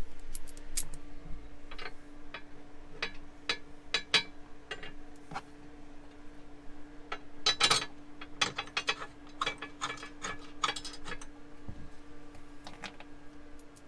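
Irregular metallic clicks and taps of hand tools and screws working on a metal roll bar clamp, with quick runs of ratchet-like clicking about halfway through, over a faint steady hum.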